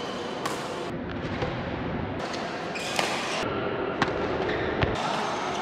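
Badminton rackets hitting a shuttlecock during a rally: sharp single hits about three seconds in, at four seconds (an overhead smash) and again shortly before the end, over the steady background noise of a sports hall.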